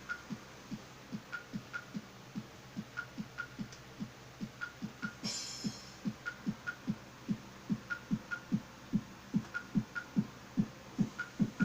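A steady, heartbeat-like throbbing pulse: low thuds about two and a half times a second, with faint paired ticks about once a second over a low hum. There is a short hiss about five seconds in, and the thuds grow slightly louder toward the end.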